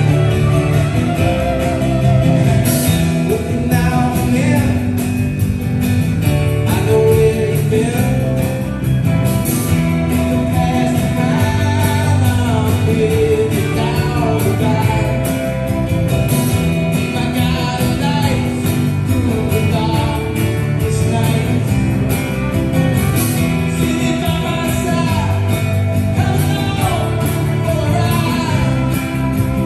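Band music: a blues-rock song with guitar, and a voice singing over it.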